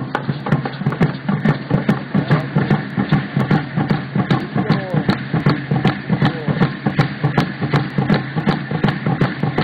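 A drum beaten in a steady, even beat of about three to four strokes a second, typical of a Native American powwow-style drum, with voices over it.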